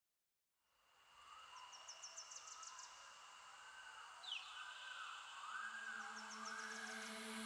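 Silence, then a faint fade-in of chirping, twittering and swooping tones that slowly grow louder: the ambient opening of a background music track, just before the beat comes in.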